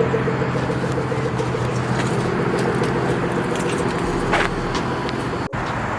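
A car engine idling steadily, with a short metallic jingle about four seconds in.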